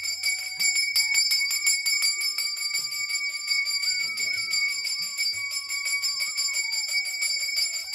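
Hand-held puja bell rung in fast, even strokes, its clear ring held steady throughout.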